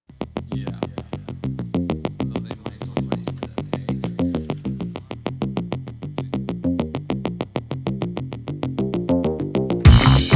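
Electronic background music: a quick, steady run of short synthesizer notes, growing fuller and louder with drums just before the end.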